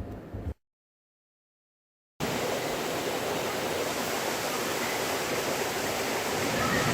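Waterfall: a steady rush of falling water that starts abruptly about two seconds in, after a short stretch of total silence that follows a brief bit of vehicle running noise.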